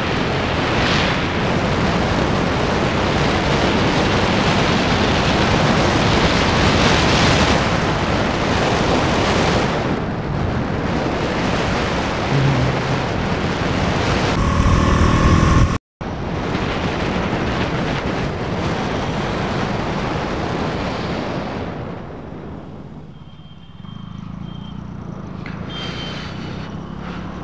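Wind rushing over the microphone of a moving KTM Duke motorcycle, with road and engine noise underneath. The sound cuts out for an instant about halfway through and is quieter over the last few seconds.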